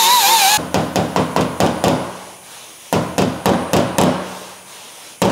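Small hammer tapping on the steel trunk lid around the wing holes: two quick runs of sharp metallic taps, about six a second, with a pause of about a second between them.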